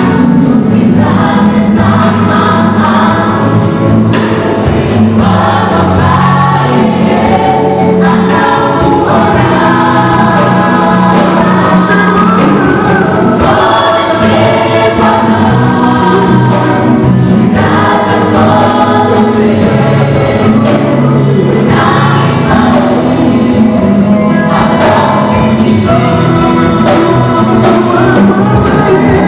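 Mixed choir of men and women singing a gospel song in held chords, steady and loud.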